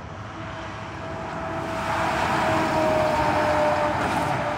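Utility bucket truck driving past on the road: engine and tyre noise swells to a peak about three seconds in, then eases off, with a whine that drops slightly in pitch as it goes by.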